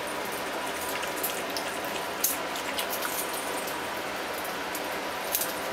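Drinkwell pet water fountain running: a steady stream of water pours from the spout and splashes into the bowl, with scattered sharper drip-like splashes.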